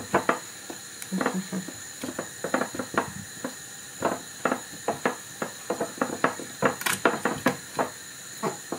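Irregular knocks, clicks and rubbing of whole cucumbers being packed and wedged tightly into a jar by hand.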